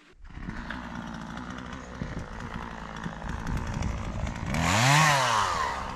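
Chainsaw running at idle, starting abruptly, then revved up and back down once about four and a half seconds in.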